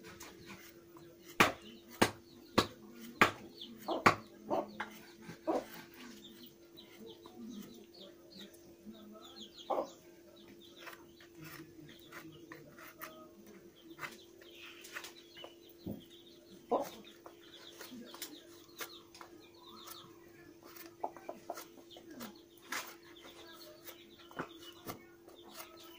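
Chickens clucking and chicks peeping, with sharp knocks now and then, the loudest and closest together in the first few seconds. A faint steady hum runs underneath.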